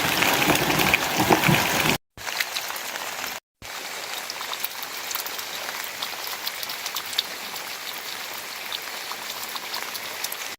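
Steady rain falling, with many small drop ticks on surfaces. The sound cuts out to silence twice for a moment, about two and three and a half seconds in, and is quieter after the first cut.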